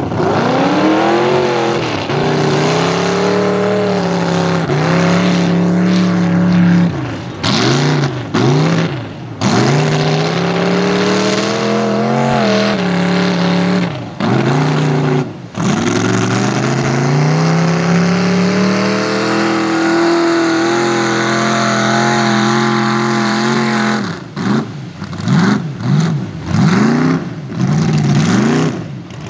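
Mud truck engine revving hard as the truck churns through deep mud, its pitch climbing and dropping in long pulls. Near the end there is a run of short, quick throttle blips, with the tires slinging mud and water.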